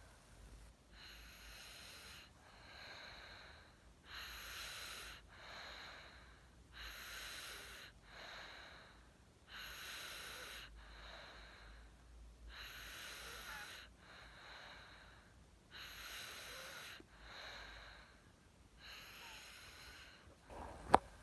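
A baby snoring in sleep: noisy, hissing breaths in and out, coming in regular pairs about every three seconds. One sharp click near the end.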